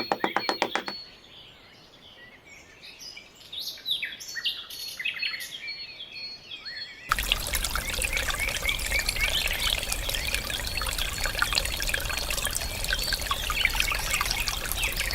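Birds chirping in short calls, then about seven seconds in a steady rush of pouring water starts abruptly and keeps running, with the chirping still over it.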